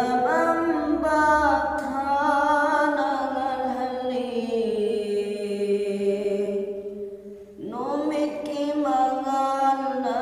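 A man chanting a Manipuri naat, an Islamic devotional poem, in a single unaccompanied voice with long, drawn-out melodic notes. One note is held for about three seconds before a short breath about seven and a half seconds in, after which the chant picks up again.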